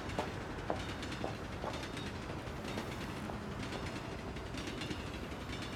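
Steady low outdoor background noise with scattered faint clicks and creaks.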